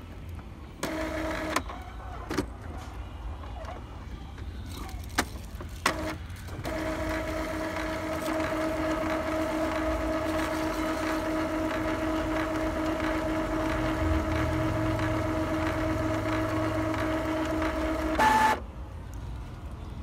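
Epson L3150 ink-tank printer running its head-cleaning cycle. Its motors give a short whine and a few clicks, then a steady hum for about twelve seconds that ends in a brief higher whine and stops.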